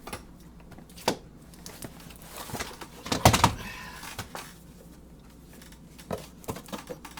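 Items being taken out of a parcel box and set down: a sharp knock about a second in, a louder cluster of knocks around three seconds in, and a few light clicks near the end.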